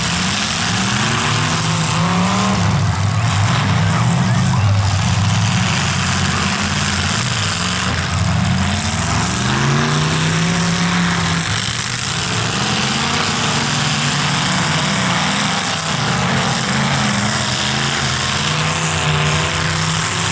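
Demolition derby cars' engines running and revving hard, their pitch rising and falling again and again over a steady loud din of exhaust noise.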